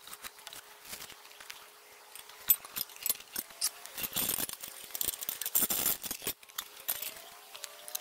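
Steel chain clinking and rattling in irregular bursts as it is handled and wrapped around a log, busiest about halfway through.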